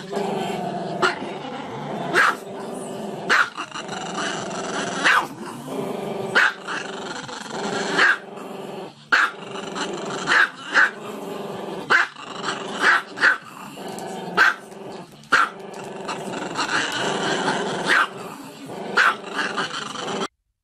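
Small black-and-tan long-haired dog howling with its head raised: a long, wavering, pitched howl broken about once a second by short, sharp barks or yips. It cuts off abruptly just before the end.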